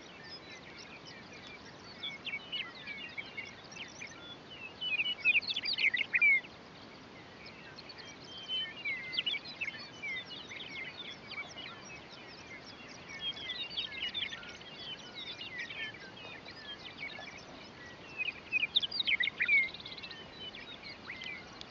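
Western meadowlarks singing over open grassland: a string of short, warbling song phrases, loudest about five seconds in and again near the end, over a steady faint background hiss.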